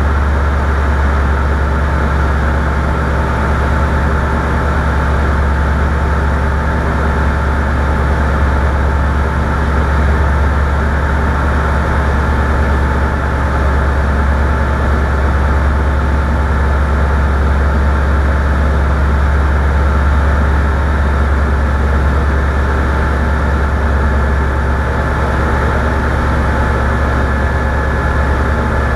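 An engine running at a steady speed: a constant low drone with several steady hum tones above it, unchanging throughout.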